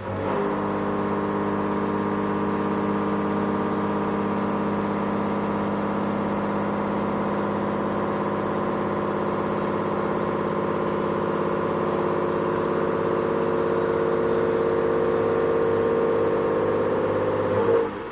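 A 63 mm face mill with HNKX inserts cutting a 2 mm deep pass: a loud, steady, pitched cutting whine with several tones at once. It starts abruptly as the cutter enters the work and stops about eighteen seconds later as it leaves, with a brief louder burst just before the end.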